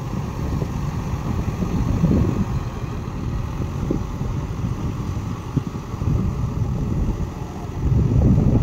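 Mahindra 585 DI tractor's diesel engine running steadily as it churns mud in a flooded paddy field, growing a little louder near the end.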